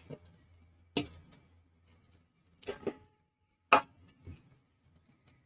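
A few sharp metallic knocks and clicks, about a second apart, of a steel plate and utensils against a stainless steel kadai as chopped nuts and dates go into hot ghee; the loudest comes a little past the middle.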